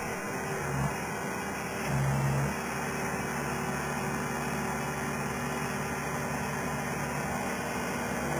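Skid steer loader engine running steadily, briefly louder about two seconds in.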